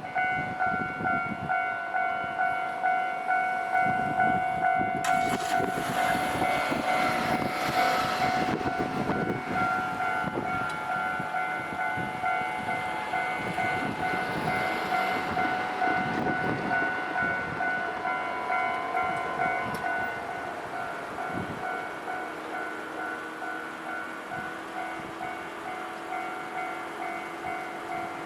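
Japanese railway level-crossing alarm ringing its repeated electronic clang at a steady beat. A train passes through the crossing from about five seconds in, loudest around eight seconds, then fades.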